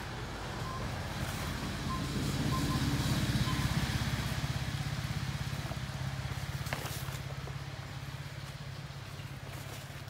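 A distant motor vehicle's engine hum that grows louder over the first few seconds and then slowly fades, as if a vehicle passes somewhere beyond the trees.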